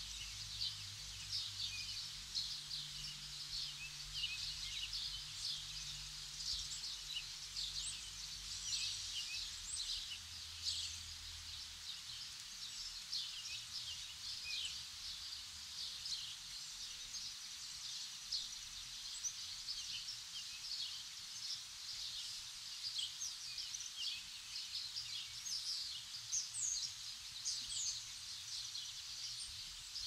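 Many small songbirds chirping and singing, a dense run of short, quick high calls overlapping throughout, over a faint low rumble.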